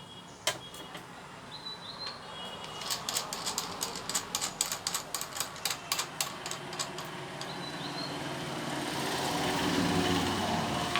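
A run of sharp taps or clicks, about three a second for several seconds, with birds chirping; near the end a passing vehicle's noise grows louder.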